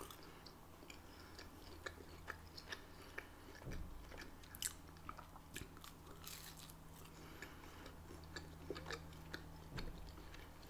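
Faint biting and chewing of a chargrilled cheese quesadilla: soft, scattered crunches and mouth clicks over a low, steady hum.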